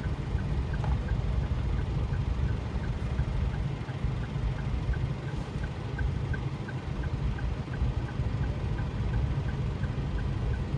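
Car cabin noise: a steady low engine and road rumble, with a faint regular ticking a little more than twice a second.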